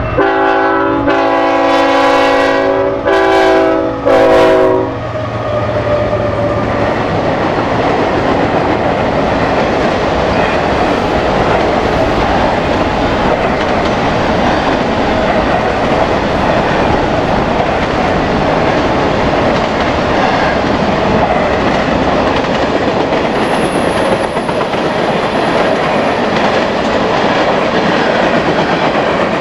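BNSF freight train's locomotive horn sounding a loud multi-note chord in about three blasts: a long one, a short one, then a slightly longer one, ending about five seconds in. Then the steady rumble and clatter of the train's wheels rolling past on the rails.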